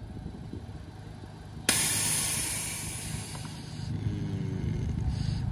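Air suspension on a Honda Civic Type R airing out: a sudden loud hiss of air dumped from the bags, starting about a second and a half in and fading over the next two seconds as the car drops, with a brief weaker hiss near the end.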